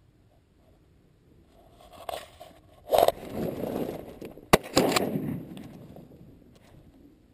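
Rustling and knocking as a hunter bursts out of a layout blind, then a single sharp shotgun shot with a short noisy tail.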